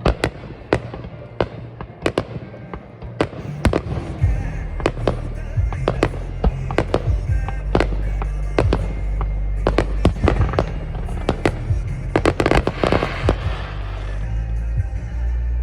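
Aerial fireworks bursting in quick succession, many sharp bangs one after another, with a dense spell of crackling about twelve to thirteen seconds in. Music with a heavy bass plays underneath.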